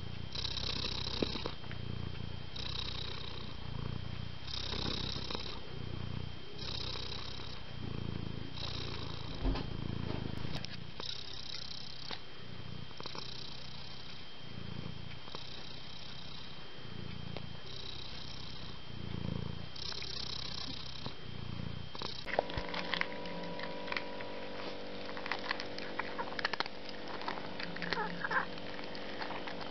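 A cat purring close to the microphone, in an even rhythm of about one breath every two seconds. About two-thirds of the way through the purring gives way to a steady hum with scattered small clicks and crackles.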